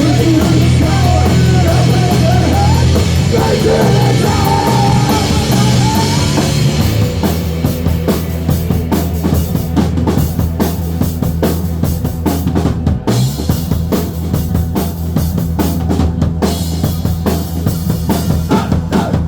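Live rock band playing loud: full band with a wavering melody line over heavy drums and bass, then about seven seconds in the higher parts drop away, leaving drums hitting steadily over a low bass line.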